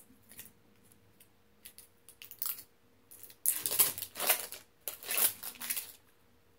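Painter's tape being handled and pulled off its roll: faint clicks and rustles at first, then several loud crackling, tearing bursts from about three and a half seconds in.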